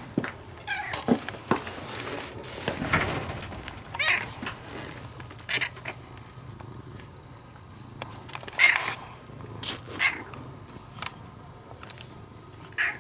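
Cat mewing: about six short, high mews spread a few seconds apart.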